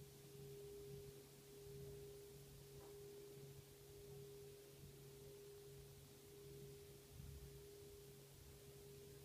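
Singing bowl ringing on faintly in a long sustain: a low tone that wavers in strength, with a steady higher tone above it.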